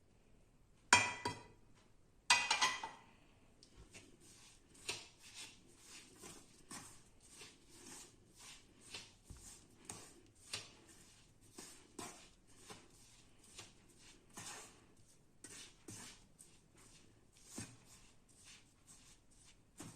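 Two ringing metal clanks near the start, then a crumbly mix of ground urad dal, jaggery and sesame oil being stirred in a metal bowl with repeated short scraping strokes, about two a second.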